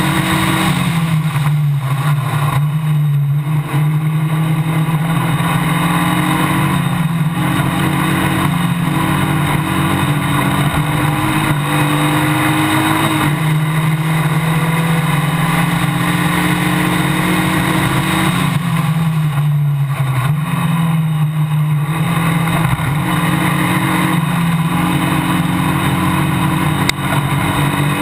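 Onboard sound of a Formula Basic single-seater racing car at race speed. The engine runs hard throughout, its pitch dropping and climbing again several times as the car shifts and brakes through the corners.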